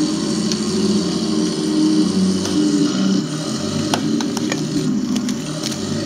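Radio-controlled King Tiger tank model driving over a dirt mound, giving a steady engine-like hum that shifts in pitch as it moves. Several sharp clicks come between about four and six seconds in.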